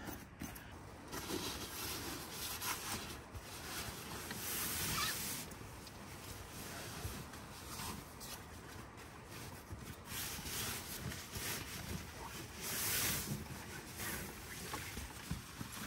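Canvas tent fabric and clothing rustling and brushing as the tent door is handled and someone climbs in, in uneven swells with a few light knocks.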